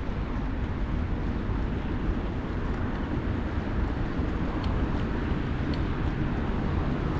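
Steady rushing wind on the microphone and rolling noise from a bicycle in motion, with a few faint clicks in the second half.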